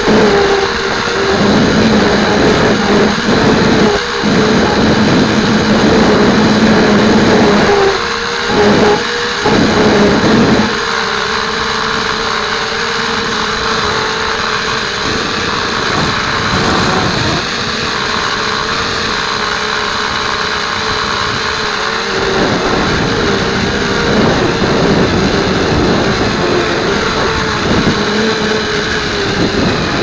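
A Blade 200 QX quadcopter's small electric motors and propellers whining, picked up by its onboard camera, with the pitch wavering as the throttle changes. Wind rushes across the microphone throughout. The sound drops quieter for about ten seconds midway, then picks up again.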